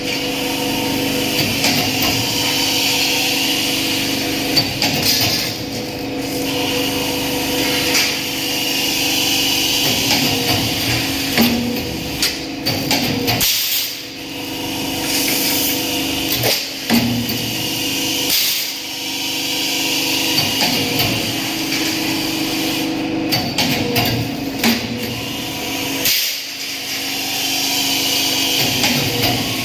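Workshop fabrication noise: irregular hammer blows over a steady machine hum.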